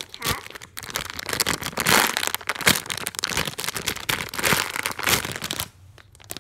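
Clear plastic packaging of squishy toys crinkling and rustling as it is handled, with a short lull near the end.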